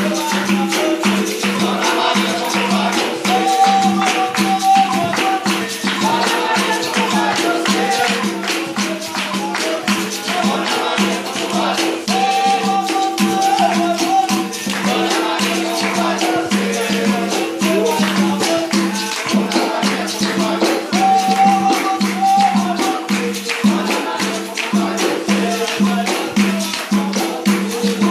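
Capoeira music: berimbaus, the low gunga among them, playing a steady rhythm with a pandeiro's jingles rattling, and voices singing phrases at intervals.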